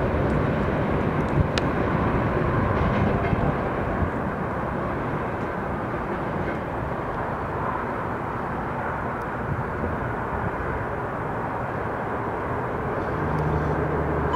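Freight train's last open-top cars rolling away over the rails and switches: a steady rumble of steel wheels on track that eases after about four seconds, with a few light clicks. A low steady hum comes in near the end.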